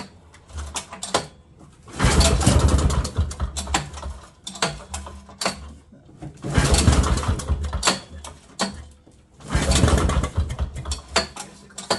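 1968 Eaton Viking snowmobile's two-stroke engine being pull-started with its recoil starter: three long pulls, each about a second and a half of clattering as the engine cranks over, with a few shorter tugs between.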